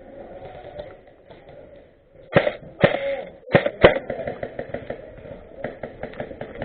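A person coughing close to the microphone: four hard coughs in quick succession a little over two seconds in, followed by fainter, quick clicking and rustling.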